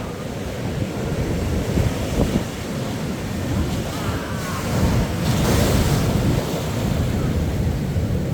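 Ocean surf breaking and washing up on the beach, with wind buffeting the microphone; a wave's wash swells louder and hissier about five seconds in.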